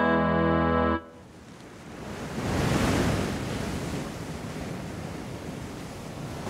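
A held accordion chord cuts off abruptly about a second in. Then sea waves breaking on a rocky shore: one wave swells about two to three seconds in, then a steady surf wash.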